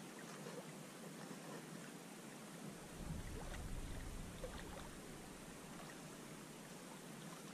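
Faint lakeshore ambience: a steady hiss of wind and water lapping at the shore, with a low rumble of wind on the microphone from about three to five seconds in.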